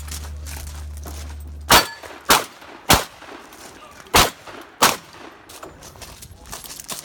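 Five shotgun shots in about three seconds: three in quick succession, a short pause, then two more.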